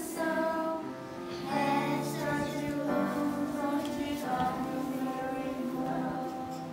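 Children singing a slow song to electronic keyboard accompaniment, the singing growing quieter toward the end.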